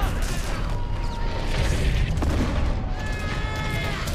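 Battlefield sound effects: a continuous low rumble following an explosion, with scattered sharp cracks of gunfire and high whistling tones that slide slowly downward, the loudest whistle about three seconds in.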